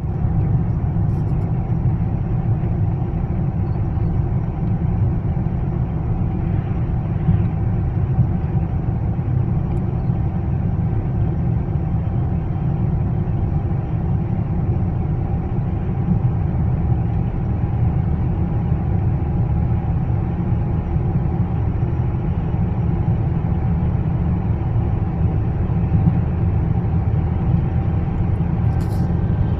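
Inside a car at motorway speed: a steady low rumble of road and engine noise.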